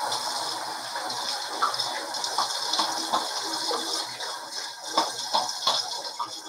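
A bathroom sink tap running steadily, with irregular splashes and small knocks in the water; it comes on suddenly at the start.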